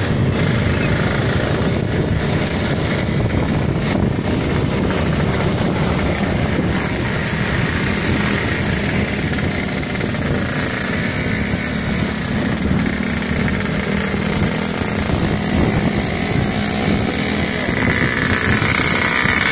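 Motorcycle engines running steadily at cruising speed with road noise, recorded from a moving motorcycle riding among a group of other motorcycles.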